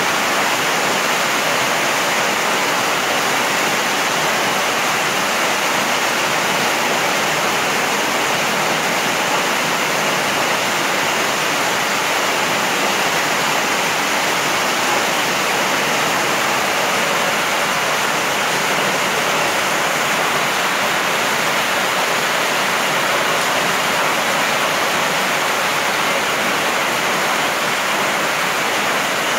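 Heavy rain pouring steadily, a loud, even hiss of drops splashing on a concrete path, gravel and tree leaves.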